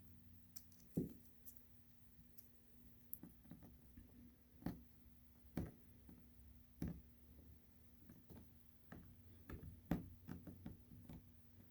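Faint, irregular light clicks and taps, about a dozen scattered through the stretch, from a bolt and threaded insert being handled and set into epoxy putty, over a faint steady hum.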